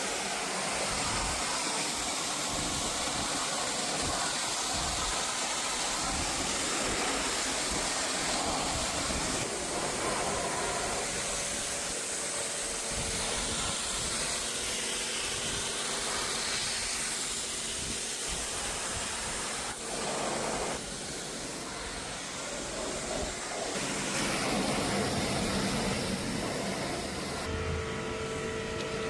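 High-pressure water jet from a service pump spraying a window air conditioner during a chemical wash: a steady hiss that shifts in strength as the jet moves. Near the end a steady hum comes in.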